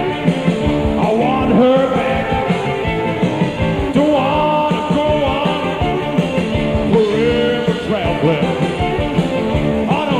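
A blues and rock-and-roll band playing an uptempo number on guitar, fiddle, bass and drums, with a lead line that slides between notes.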